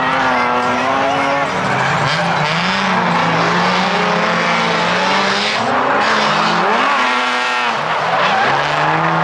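Drift car engine revving up and down, pitch rising and falling repeatedly, with the tires squealing and skidding under it.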